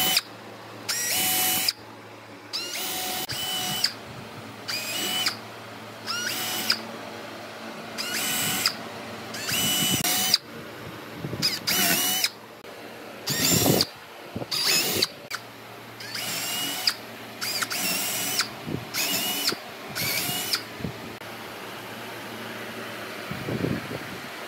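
Power drill boring holes into a pine board in short bursts, about fifteen of them, the motor's whine rising at the start of each burst as it spins up. The drilling stops a few seconds before the end.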